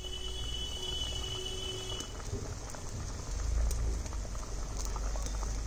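Thin fish curry (jhol) bubbling at the boil in the pot, with a steady low rumble underneath.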